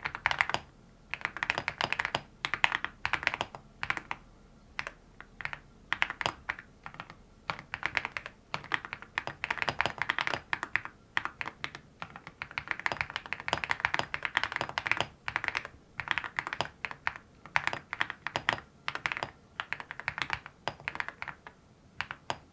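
Typing on a mechanical keyboard fitted with ceramic keycaps: rapid keystroke clicks in bursts of a second or two with short pauses between. A deep, thocky keystroke sound, with the sharpness of plastic keycaps brought down.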